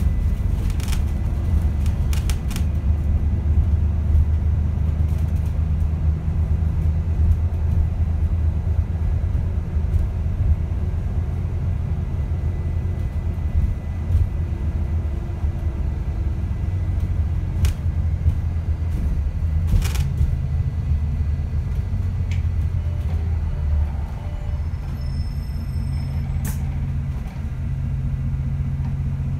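ADL Enviro400 MMC Smart Hybrid double-decker bus on the move, heard from inside the lower deck: a steady low rumble of drivetrain and road noise with the odd knock, and a brief faint high-pitched tone near the end.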